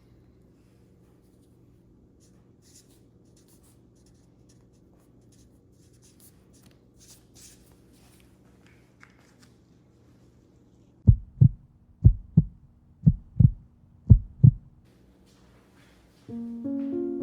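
Four pairs of low, dull thumps about a second apart, in a double-beat rhythm like a heartbeat, after some faint light rustling. Piano music starts near the end.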